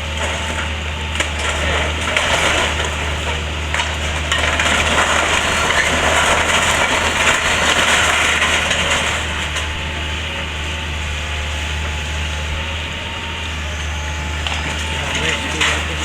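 Excavator's diesel engine running steadily while the timber of a house cracks, splinters and crushes as a section is pushed over, the crunching loudest around the middle.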